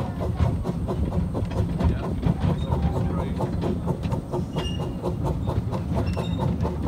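Light railway carriage running along the track, heard from on board: a steady rumble with the wheels clicking over the rail joints in a quick, even rhythm.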